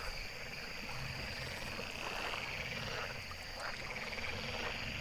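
A chorus of frogs croaking continuously, many calls overlapping into a steady pulsing trill, with a low rumble underneath.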